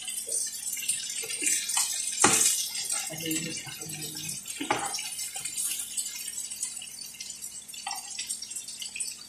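Chicken pieces sizzling in oil in a frying pan, while a metal slotted spatula and fork stir and scrape them against the pan. Two sharp knocks of the utensils on the pan, about two seconds in and again near five seconds.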